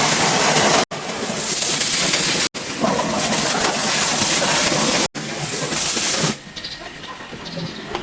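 Pressure washer spraying water in a loud, steady hiss, broken by three brief dropouts. The spray stops about six seconds in, leaving a much quieter background.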